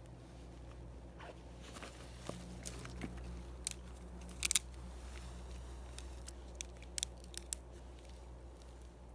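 Dry twigs and leaves snapping and crackling in a handful of sharp cracks, loudest a few close together about halfway through, then several more near the end.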